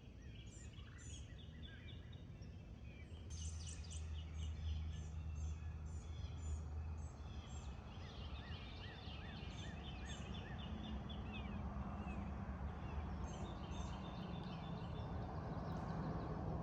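Birds calling, with runs of short high chirps repeated quickly, over a steady low rumble.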